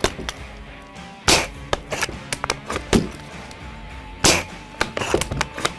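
Silverback SRS-A1 spring-powered air-cocking airsoft bullpup sniper rifle firing two sharp shots about three seconds apart. Lighter clicks come between them as the bolt is worked.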